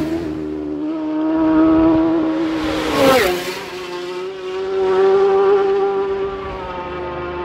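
Racing motorcycle engines at high revs on a road course. One bike passes close about three seconds in, its pitch dropping sharply as it goes by, while the engine note of another carries on, swelling again around five seconds in.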